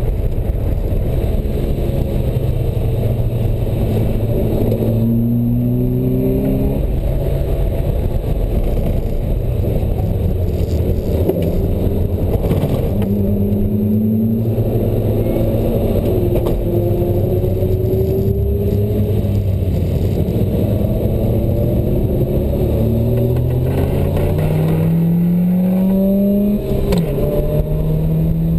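Open-top sports car's engine heard from inside the cockpit, driven hard around a circuit: its pitch climbs under acceleration and falls back at each gear change, several times over.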